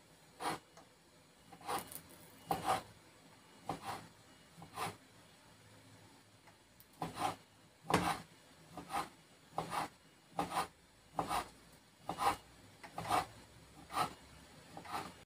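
Chef's knife slicing through a stack of wonton wrappers on a wooden cutting board, each cut ending in a short knock of the blade on the board, about one cut a second with a short pause midway.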